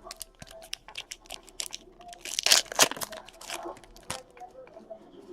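Trading cards and a card pack wrapper being handled: a run of light clicks and crinkles as cards are shuffled, with a louder crinkling tear about two and a half seconds in as a pack is ripped open.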